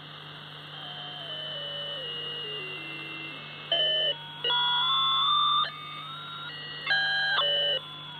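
Audio from an AOR AR-DV10 receiver in upper-sideband mode with its 2.6 kHz filter, tuned across a signal-generator carrier. Thin beat tones step down in pitch as it is tuned. From about halfway in come loud bursts of several whistling tones at once, jumping about in pitch, so the frequency cannot be judged: the sign of a broken 2.6 kHz SSB digital filter.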